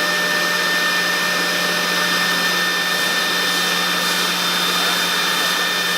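CNC router running with a steady, unchanging whine over a constant rushing noise.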